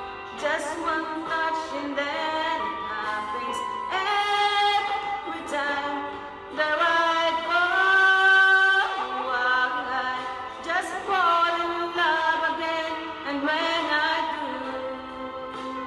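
A woman singing a slow love song along to a karaoke backing track into a handheld karaoke microphone, holding long notes over the accompaniment.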